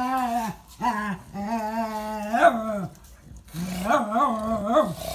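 Dogs playing rough, with long drawn-out play growls: a sustained groaning growl at the start, a longer one, then one that wavers up and down in pitch near the end.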